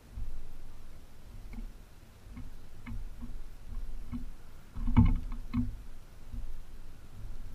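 Belted kingfisher beating a fish against a wooden post: a series of dull knocks, roughly one every half second to a second, loudest in a quick cluster about five seconds in. Kingfishers beat their catch like this to stun it before swallowing.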